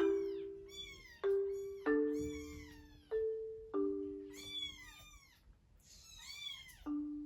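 Baby kitten meowing repeatedly in high, arching cries, about one a second, as it calls for its absent caregiver. Gentle mallet-percussion background music plays underneath.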